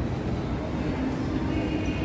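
Escalator running with a steady low rumble, heard amid the background noise of a shopping mall's interior.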